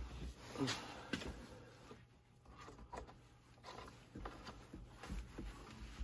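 Quiet, scattered clicks, light knocks and soft thuds as a chainsaw is handled on a workbench.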